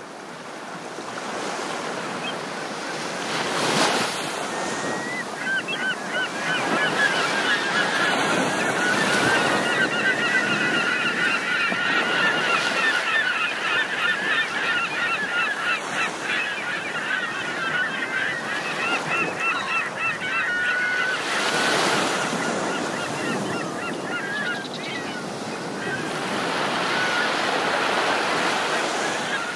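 Waves washing on a shore, rising and falling in swells, with a flock of birds calling over them without a break from a few seconds in. The calls fade for a while after about twenty seconds and return near the end.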